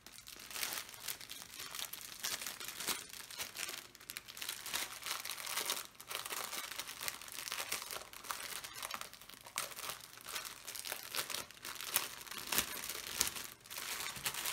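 Clear plastic bag crinkling as it is handled and opened, the small packets of diamond-painting drills inside shifting against each other, in a steady run of quick rustles.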